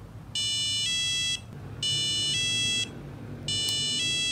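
Buzzer of a micro:bit alarm clock sounding its alarm at the set time: a two-note electronic beep about a second long, repeated three times with short gaps.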